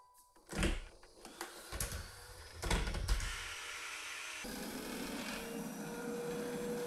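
Vorwerk Kobold VK7 cordless vacuum cleaner: a few knocks and clicks of handling, then the motor running steadily, becoming fuller with a steady whine about halfway through.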